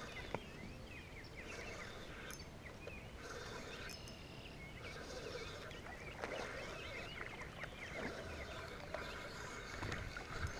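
Many birds calling, a steady mix of short chirps and whistles with buzzy trills now and then. Near the end a hooked fish splashes at the surface.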